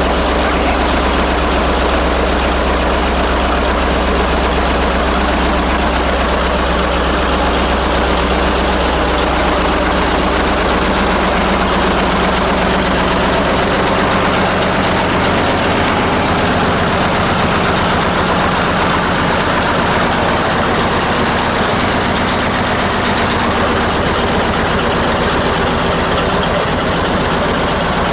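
1948 Buda 8-DC-1125 straight-eight diesel running steadily shortly after a cold start. Its low note steps up about halfway through.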